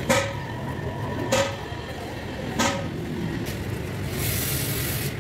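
Three sharp knocks, each with a short metallic ring, about 1.3 seconds apart over a steady low rumble; a hiss comes in near the end.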